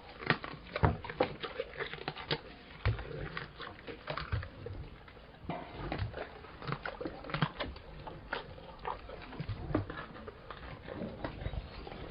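Lion heard close up, making irregular crunching and clicking sounds as it moves about on dirt and chews.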